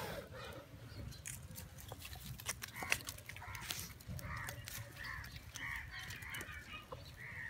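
Small wood fire crackling with scattered sharp clicks as a whole chicken is singed over it and its burnt feathers rubbed off by hand. Short calls from birds repeat in the background.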